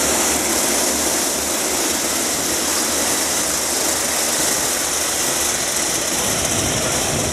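A pack of two-stroke racing karts running together on the circuit at racing speed, their engines merging into a loud, steady drone.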